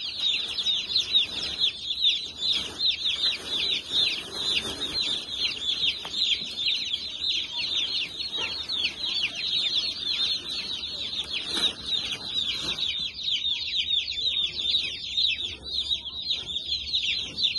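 A crowd of day-old chicks peeping without a break: many overlapping high, falling peeps. A few faint knocks of handling sound underneath.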